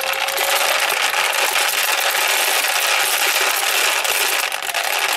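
Ball mill running: 2 kg of ceramic balls tumbling and clattering inside its 6-litre tank with three lifter blades, turned on the mill's rollers. A dense, steady, very noisy rattle.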